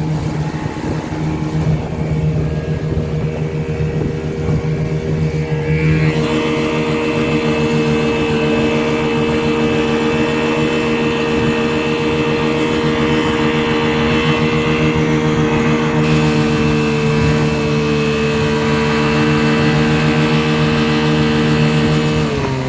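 1978 Chrysler 15 hp two-stroke outboard motor running steadily under way, its note filling out about six seconds in. The engine pitch starts to drop right at the end.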